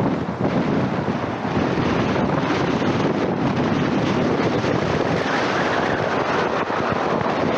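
Steady wind noise rushing over the microphone, mixed with the road and tyre noise of a car driving at speed.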